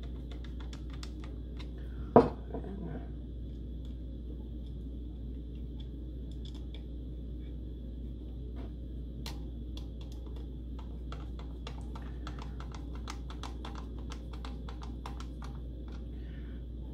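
A screwdriver backing screws out of a metal drive bracket: a run of small, quick clicks and scrapes of metal on metal. One sharp knock about two seconds in is the loudest sound, and more scattered clicks and rattles follow as the drive and bracket are handled.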